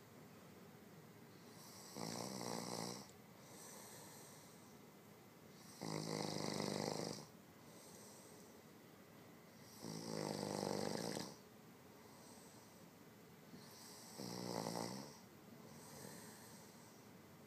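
A man snoring heavily in deep sleep: four loud snores about four seconds apart, each lasting about a second, with softer breaths between them.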